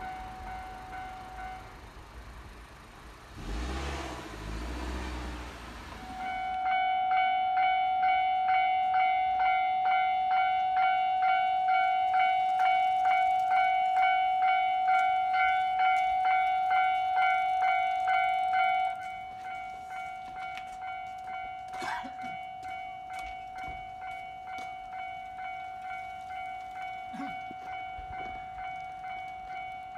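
Japanese railway level-crossing alarm bell ringing, one ringing tone repeated about twice a second. It starts loudly about six seconds in, after a few seconds of low rumble, and drops to a quieter level about nineteen seconds in while it keeps ringing; a short sharp click comes a few seconds later.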